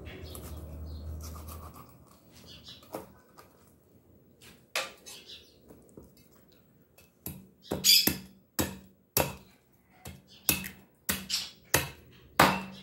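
A large knife chops through frozen tucunaré fish onto a wooden cutting board. It makes a series of sharp knocks that come thicker from about halfway in, roughly two a second. A low hum stops about two seconds in.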